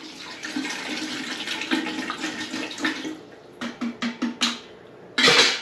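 Water poured from a plastic bottle into the stainless-steel top chamber of a gravity-fed water filter, a steady splashing pour that breaks into several short glugs as the bottle empties. A brief louder rush of noise comes near the end.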